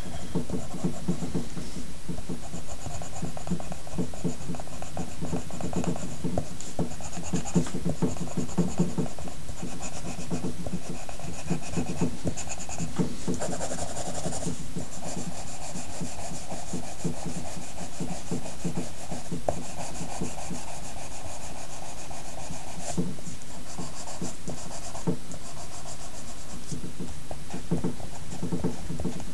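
Pencil strokes scratching and rubbing on paper in quick, almost continuous back-and-forth shading.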